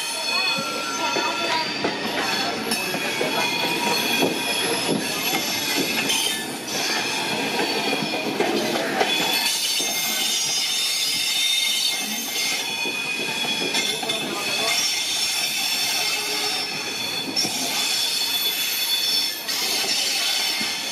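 Wheels of LHB passenger coaches squealing on curved track as the train moves out over the points: several high, shrill tones that overlap and shift continuously, over the rolling rumble of the wheels on the rails.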